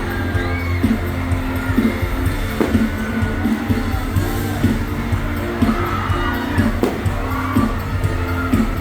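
Live pop music played loud over a concert sound system, with a singing voice over a steady beat and a crowd cheering beneath it.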